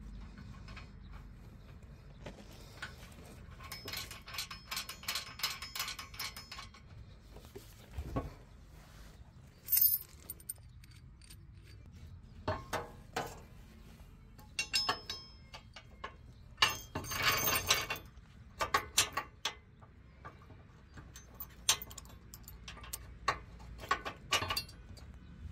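Irregular bursts of small metal parts clinking and rattling: a flat washer and nut being worked onto a bolt by hand, behind a plastic bumper.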